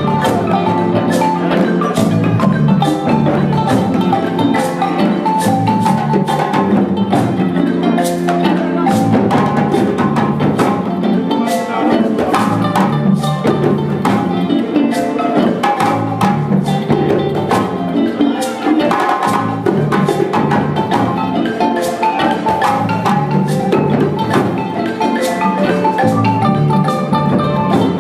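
A live West African band playing without a break: balafon (wooden xylophone) runs over djembe drums, with kora and electric guitar in the mix.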